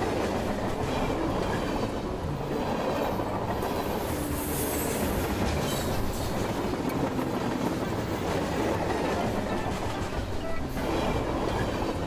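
Toy train running along plastic track: a steady rumbling clatter of a moving train with its wagons.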